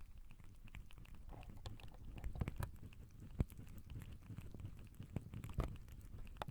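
Lobsters giving off irregular faint clicks and crackles over a low rumble, which the uploader presents as lobsters breathing. A few sharper clicks stand out, about halfway through and again near the end.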